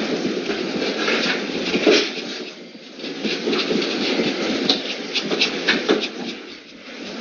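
Close-miked paintbrush scrubbing acrylic paint onto the artwork in runs of quick scratchy strokes, with short pauses about two and a half seconds in and near the end.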